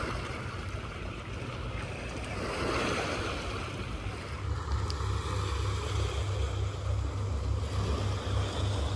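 Small sea waves washing and lapping over a rocky, pebbly shore, over a low steady rumble that grows heavier about halfway through.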